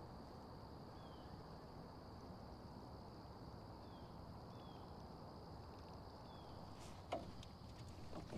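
Faint outdoor ambience: a steady high insect drone with a few short, faint chirps over a low hiss. A couple of soft knocks come near the end.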